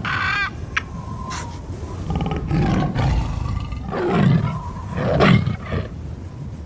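Tiger roaring as a sound effect: three deep roars about a second apart, the loudest sounds here. A brief bird call of quick repeated chirps comes at the very start.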